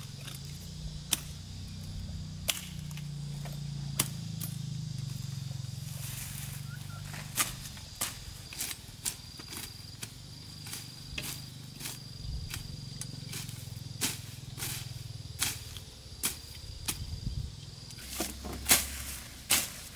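Hand sickle cutting through leafy brush stems: sharp snaps and swishes at irregular intervals, sparse at first and coming quicker in the second half, over a steady low hum.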